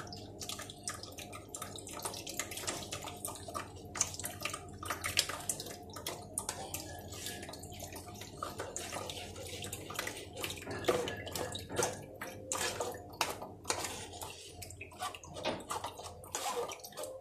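A spoon stirring and scraping falsa pulp in a mesh strainer, with irregular clicks and scrapes against the strainer and juice dripping and trickling through into the bowl beneath.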